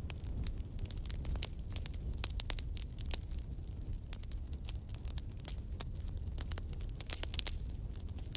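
Handling noise from a handheld recording: many irregular small crackles and clicks over a steady low rumble.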